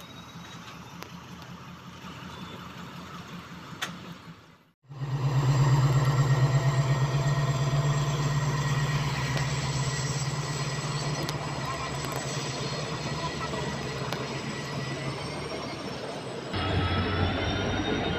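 A passenger train rolling past on the rails. It is quieter for the first few seconds. After a brief dropout about five seconds in, a diesel-hauled train of coaches passes close, with a loud, deep, steady engine drone, rail running noise and thin high whines from the wheels.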